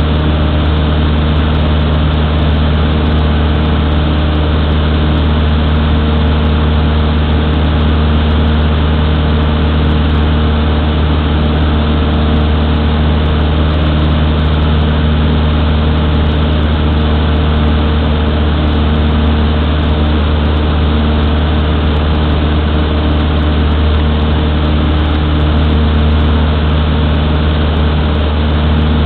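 Cessna 152's four-cylinder Lycoming O-235 engine and propeller running steadily at an unchanging power setting, heard from inside the cabin.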